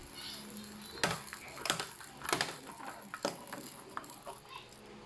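Balls clattering down a toddler's plastic ball-drop ramp toy: sharp clacks roughly every half second to a second, with fainter ticks between them, as the balls drop from tier to tier.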